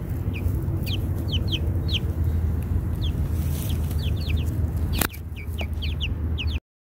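Young chickens peeping: short, high, falling peeps in quick runs, over a steady low rumble, with one sharp click about five seconds in.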